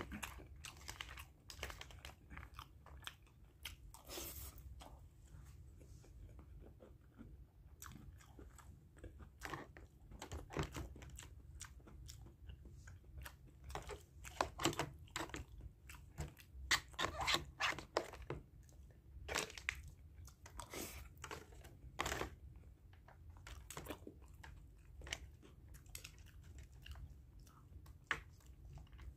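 Eating with a metal spoon and fork from a black plastic takeaway container: irregular clicks and scrapes of the cutlery on the container, mixed with chewing.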